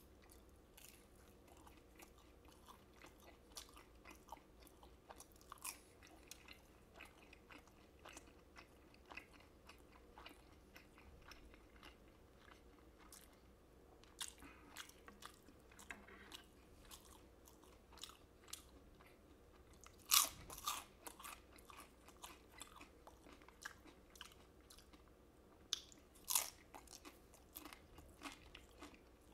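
Close-miked chewing and crunching of fried Chinese takeout food, a steady run of small crisp crackles and mouth sounds, with louder crunchy bites about twenty and twenty-six seconds in.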